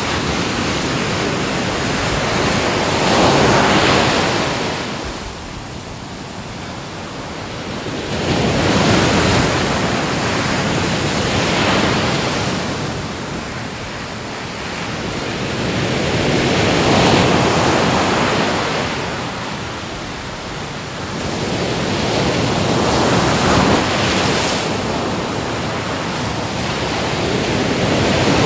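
Ocean waves breaking and washing on the shore, the surf swelling and falling back about every five seconds.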